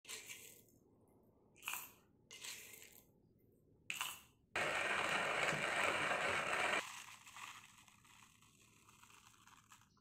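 Hand-cranked wooden box coffee grinder crunching coffee beans: a few short crunches, then about two seconds of steady grinding from about halfway in, trailing off.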